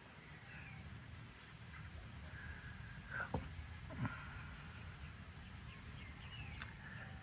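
Morning countryside ambience: scattered bird chirps over a steady high-pitched insect drone and a low rumble, with two short, sharp, louder calls about three and four seconds in.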